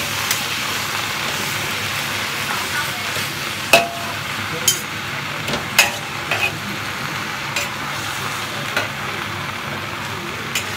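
Water spinach sizzling in a hot wok as it is stir-fried, with a steady frying hiss. A metal spatula and ladle scrape and clink against the wok at irregular moments, the sharpest knock nearly four seconds in.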